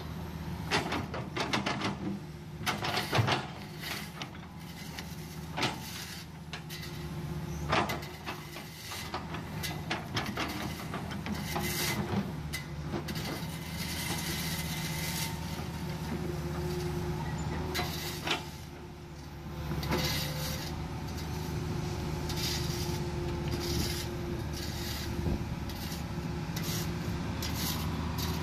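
Hitachi hydraulic excavator's diesel engine running steadily under working load, with scrapes and clunks of digging in earth and broken rubble, most frequent in the first twelve seconds.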